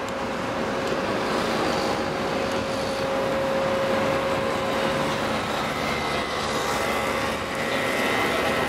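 Steady running of heavy port machinery, an even mechanical din with a constant whine through it, as a railcar is moved along the quay.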